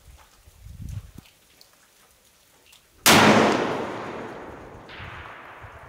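A single rifle shot from a bipod-mounted precision rifle with a muzzle brake, about three seconds in: a sharp, loud crack whose report rolls away slowly over the next two seconds. A fainter sharp sound comes near the end of that decay.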